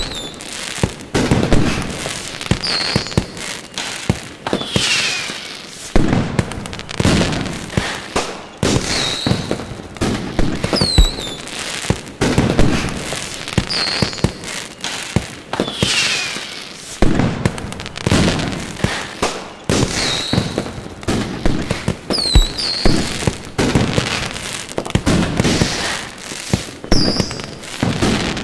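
Aerial fireworks display: a dense, irregular run of loud bangs from bursting shells, with crackling after the bursts and short falling whistles between them.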